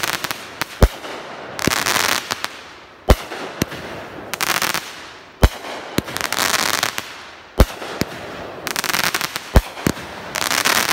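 A 200-gram consumer fireworks cake (Raccoon Fireworks Miles of Smiles) firing shot after shot: sharp reports about every two seconds, each followed by a spell of crackling as the stars burst.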